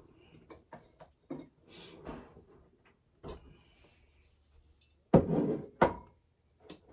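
Kitchen handling sounds: scattered light clicks and knocks, with two louder clattering knocks a little after five seconds in.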